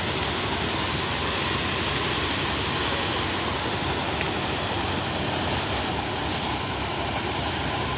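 Motorized paddy thresher running steadily while threshing rice sheaves, a continuous mechanical drone.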